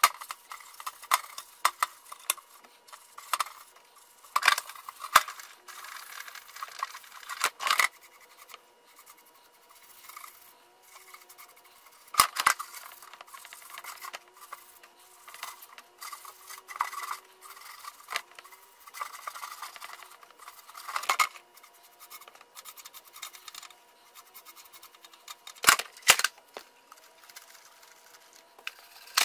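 Stiff brush scrubbing the painted sheet-metal surface of a tool box in a shallow bath of solvent, in repeated scratchy strokes. Several sharp knocks stand out between the strokes, the loudest about 12 s in and twice near the end.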